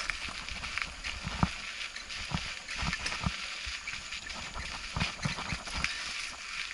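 Mountain bike rattling and knocking over a rocky, root-strewn dirt trail, with uneven sharp knocks about once or twice a second over a steady hiss of wind and tyre noise.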